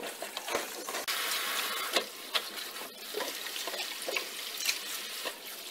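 Kitchen faucet running onto salted napa cabbage in a plastic colander while hands toss and squeeze the wet leaves under the stream, with splashing and short wet slaps throughout.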